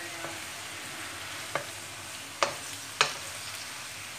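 Vegetables and tofu sizzling in a hot nonstick wok as they are stirred and tossed with a wooden spatula, which knocks sharply against the pan a few times in the second half.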